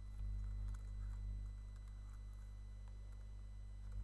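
Steady low electrical hum on the recording, a little louder for about the first second and a half. Over it come a few faint computer-keyboard clicks as a command is typed.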